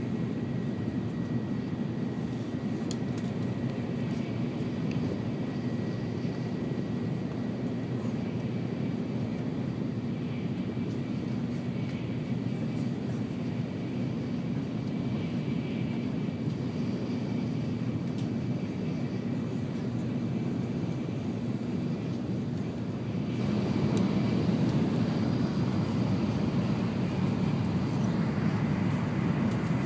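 Steady running noise inside the cabin of an N700-series Shinkansen at speed: a low rumble of wheels, track and air. It gets louder and fuller about three-quarters of the way through and stays that way.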